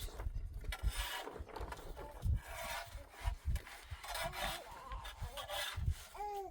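Repeated rasping, scraping strokes, about one a second, with low knocks between them and a short pitched call near the end.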